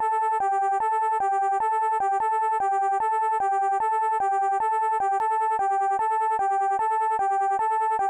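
Electronic hi-lo alert tone: two synthetic notes alternate evenly, each held about 0.4 s, with a slight click at every switch.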